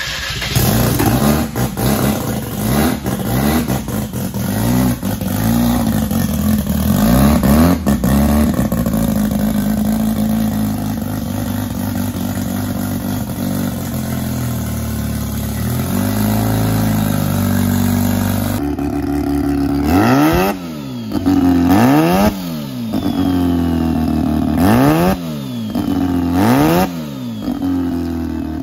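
Turbocharged rotary engine of a rotary-swapped Suzuki Sidekick running, revved in frequent short blips. In the second half come four sharp, strong revs, each rising and falling in pitch.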